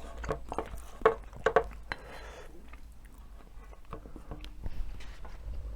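Close-miked chewing, with wet mouth sounds and several sharp clicks in the first two seconds.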